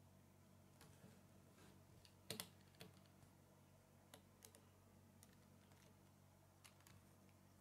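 Faint, scattered clicks and taps of a small plastic Lego motorbike being handled and turned over on a wooden table. The sharpest is a double click about two seconds in, with a few lighter ones later.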